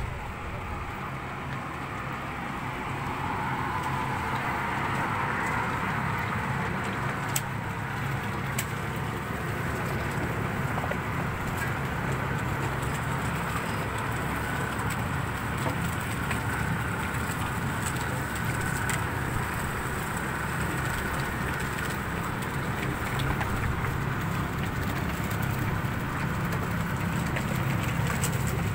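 A machine running steadily with a constant low hum, with a few faint clicks.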